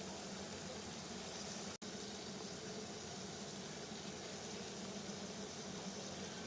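Water boiling: a steady, even bubbling hiss. The sound cuts out completely for an instant a little under two seconds in.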